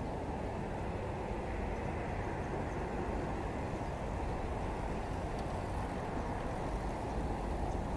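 Steady low rumble of distant road traffic, unchanging throughout.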